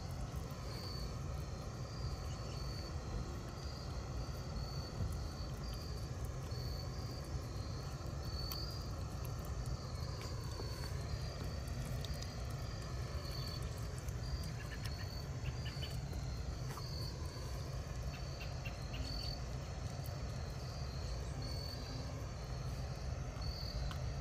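Insects chirping in a steady, evenly pulsing rhythm over a low background rumble, with faint scattered crunching clicks as a puppy gnaws a raw chicken head.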